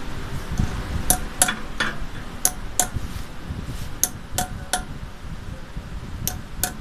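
Ball-peen hammer tapping metal at the wire-mounting head of a carding machine's taker-in roller while the metallic wire is fitted. About ten light, sharp, ringing taps, mostly in quick pairs, with short gaps between the groups.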